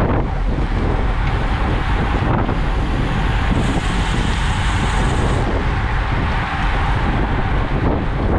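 Wind buffeting the microphone of a camera riding in a cycling peloton at about 36 km/h, with tyre and road rumble under it: a steady, loud rushing noise.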